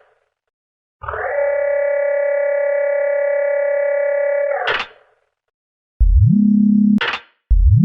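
Synthesized cartoon sound effects: a steady, buzzy electronic tone held for nearly four seconds that ends in a short whoosh. After a pause, a low tone slides up in pitch and is cut off by another whoosh.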